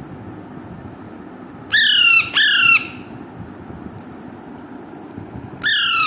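Alexandrine parakeet squawking loudly: two harsh calls in quick succession about two seconds in, and another pair near the end.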